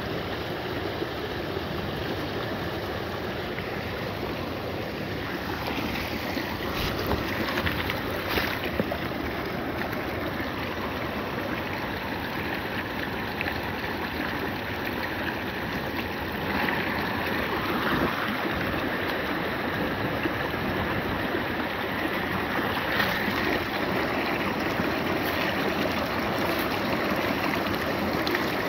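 Glacial meltwater stream rushing over a rocky bed, a steady rush of water, with a few faint clicks.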